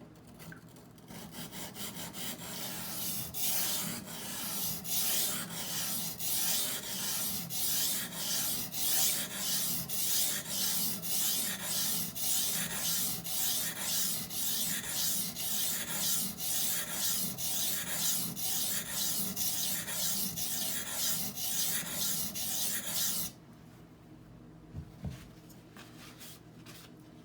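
Steel knife blade scraped in repeated back-and-forth strokes across a coarse 220-grit Norton water stone, about two strokes a second, stopping abruptly a few seconds before the end. This is the coarse first stage of sharpening, raising and flipping a burr to grind out the factory edge.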